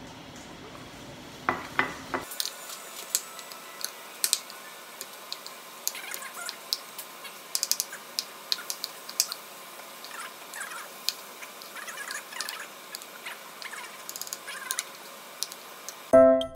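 Metal spoon clinking and scraping against a ceramic bowl as rice is mixed: many small, irregular clinks. In the last moment a chiming music melody starts.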